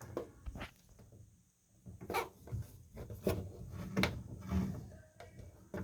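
Scattered knocks, clunks and rubbing from hands handling the washing machine's parts and fittings, about half a dozen distinct knocks spread irregularly with a quiet stretch of about a second near the start.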